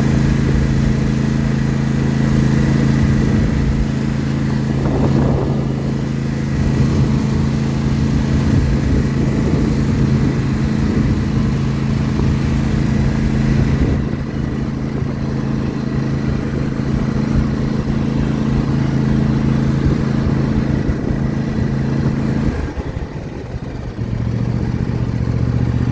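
John Deere S160 lawn tractor engine running steadily at a constant note. Near the end the note dips briefly, then settles a little lower.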